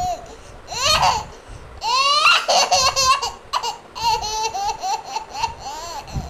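Toddler laughing and squealing in high-pitched bursts while playing.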